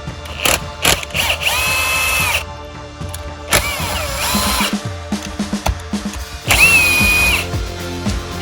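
Power drill run in three short bursts of about a second each, spinning up, holding speed and winding down, likely drilling out a stripped bolt hole in an aluminium cylinder head ready for a helicoil insert. Light tool clicks between the bursts.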